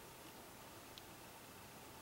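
Near silence: steady faint hiss of room tone, with one faint click about a second in.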